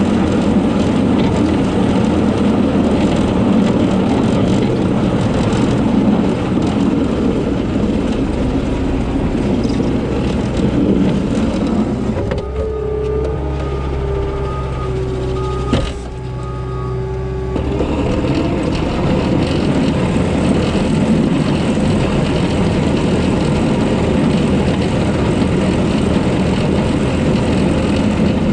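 Diesel engine of snow-clearing heavy equipment running steadily with a loud rushing noise. About halfway through, the rushing drops away for some five seconds, leaving a steady whine, and there is a single knock near the end of that stretch before the full noise returns.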